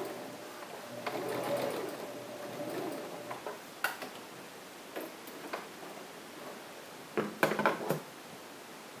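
Household sewing machine stitching a sleeve seam in T-shirt knit for about two seconds, then stopping. A few clicks follow, and near the end a quick cluster of snips as scissors cut the thread.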